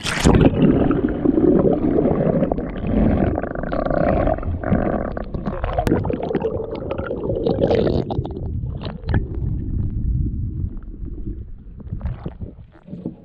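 Underwater sound through a submerged camera's microphone: a muffled, rumbling gurgle of water against the camera, beginning with a splash as it goes under.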